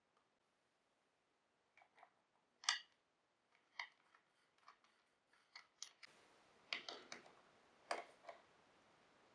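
Irregular light clicks and knocks of handling work, like small parts or tools being picked up and set down, over near silence; the sharpest click comes about three seconds in.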